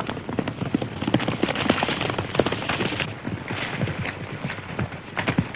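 Hoofbeats of a galloping horse: a fast, irregular run of thuds over a hissing background.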